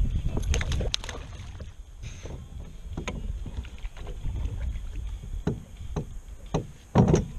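Scattered knocks and clatter on the hull of an Ascend FS128T fishing kayak as an angler handles and lets go of a fish, over a low wind rumble on the microphone. The loudest knocks come in a short cluster about seven seconds in.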